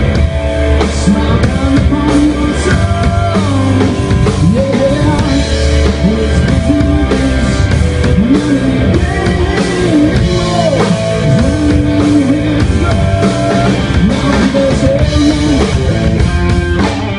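Live rock band playing: electric guitar lines with bent, gliding notes over a drum kit.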